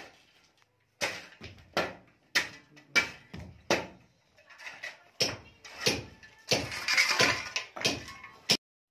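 A run of sharp knocks and crunches on gritty ground, about one every two-thirds of a second, with a pause near the middle and a denser scraping stretch near the end; the sound cuts off abruptly just before the end.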